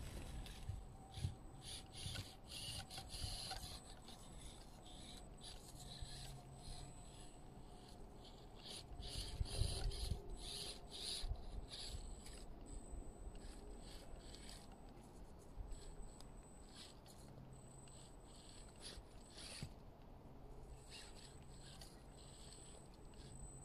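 Small RC crawler working over roots and moss: scratchy rubbing and scraping of its tyres and chassis on bark and ground, with a few louder knocks, about ten seconds in the loudest. A thin high steady tone comes and goes underneath.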